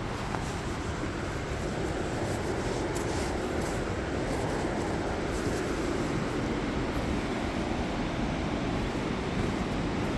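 Waterfall: a steady, even rush of falling water, heavy in the low rumble.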